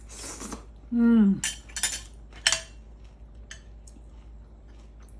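Cutlery and dishes clinking a few times during a meal, three sharp clinks close together, the last ringing briefly; a short hum of approval ("Mmm") just before them.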